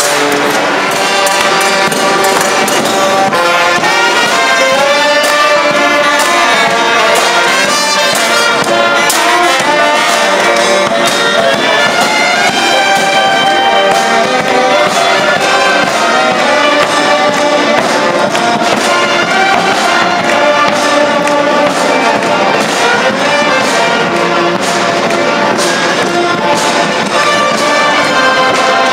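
A street brass band playing a lively tune: trumpets and trombones carry the melody over regular drum beats.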